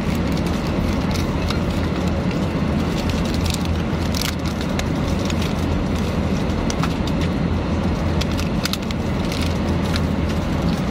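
Steady low drone of an airliner cabin, with a plastic snack wrapper crinkling in scattered sharp crackles as it is handled close by.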